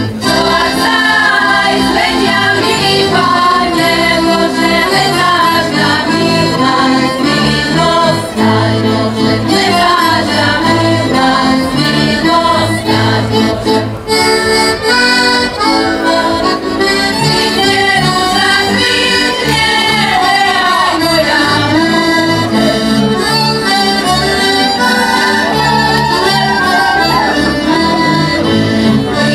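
Women's singing group performing a Slovak folk song, the voices carried over a folk band that includes a double bass.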